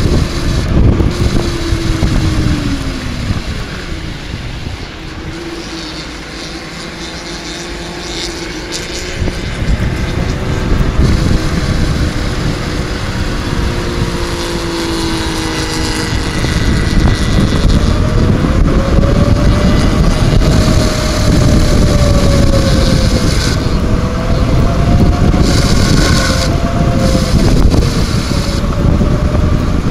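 Wind buffeting the microphone while cycling, with the drone of vehicle engines on the highway slowly rising and falling in pitch. The wind noise eases for a few seconds near the start, then builds again.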